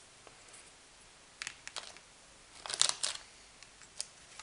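Thin carbon-fibre drone frame plates clicking and clattering against each other and the table as they are handled: a few light clicks, a louder cluster about three seconds in, and a single tick near the end.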